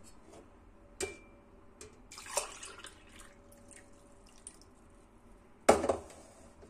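Thin apple stewed-fruit drink (kompot) poured from a stainless steel pot into a ceramic mug, trickling and splashing, with a knock about a second in and a louder knock near the end as the pot is set down on the countertop.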